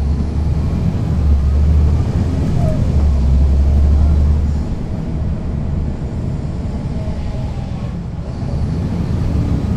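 A city bus's Caterpillar C13 ACERT diesel engine, heard from the rear seats over the engine bay, running under load with a deep drone. It eases off about five seconds in and builds again near the end.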